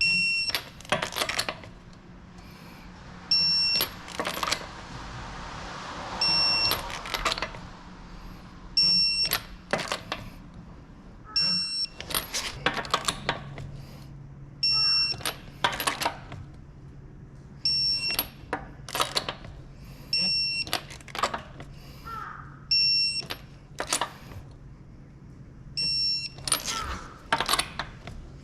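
Short electronic beeps, each a quick string of high pips, repeating every two to three seconds, mixed with sharp clicks and clatters of metal tools. A low steady hum runs underneath.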